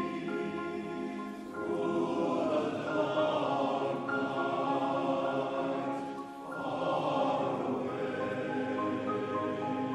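Male voice choir singing sustained chords in harmony, with a brief break between phrases about six seconds in.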